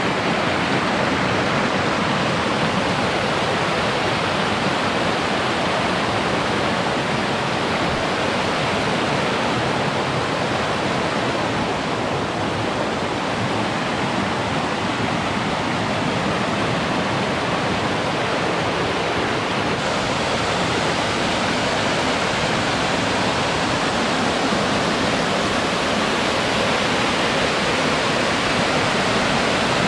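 Water pouring over a beaver dam in a small waterfall, a steady loud rushing and splashing.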